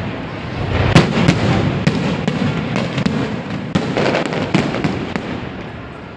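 Fireworks display: aerial shells bursting one after another, sharp bangs over a continuous rumble. The loudest bang comes about a second in, and the barrage thins out and quietens near the end.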